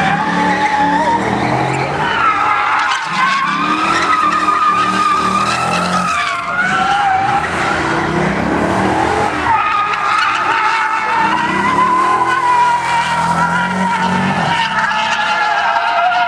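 Dodge Challenger's tyres squealing continuously as it slides sideways through the turns, with the engine running hard underneath. The squeal wavers in pitch as the slide tightens and eases.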